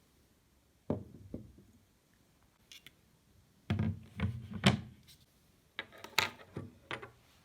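Objects being handled and set down on a hard surface: a few sharp knocks about a second in, then a quick run of knocks and clatters near the middle and another group near the end.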